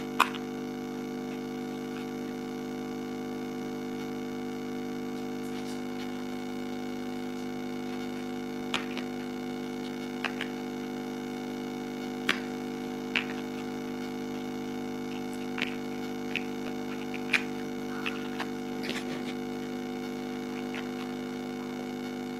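A steady electrical hum, with scattered light clicks and knocks of large plastic toy building blocks being fitted and pressed together, about a dozen of them from about nine seconds in.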